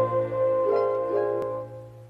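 Instrumental music: a held chord over a steady low note, with a couple of new notes coming in, fading away near the end.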